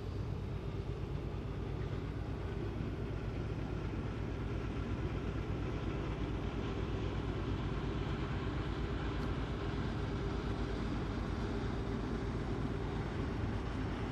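Low, steady rumble of a passing river cruise ship's diesel engines, with a fast, even throb.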